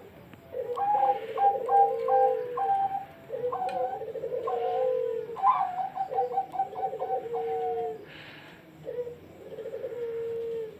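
Zebra dove (perkutut) singing its cooing song: about four phrases, each a rapid run of short staccato notes that ends in a longer, lower held coo.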